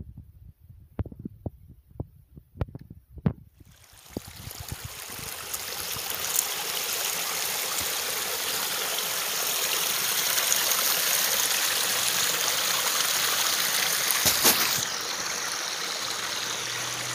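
Small rocky stream running, a steady rushing of water that swells in over a couple of seconds and then holds. Before it comes in there are a few scattered sharp clicks and knocks, and a single knock comes near the end.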